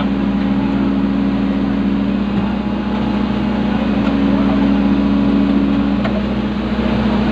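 Excavator's diesel engine and hydraulics running steadily, heard from inside the operator's cab, as the boom lowers a suspended load. One strand of the hum drops away about six seconds in as the machine's movement changes.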